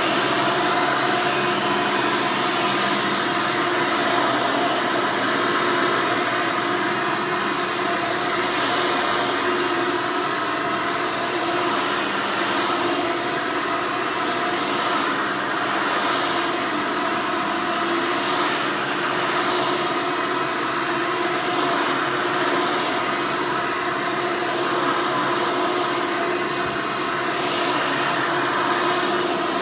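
1999 Hoover Soft & Light (Elite) upright vacuum running with its 7-amp direct-air motor: a steady motor whine over the rush of air through the machine.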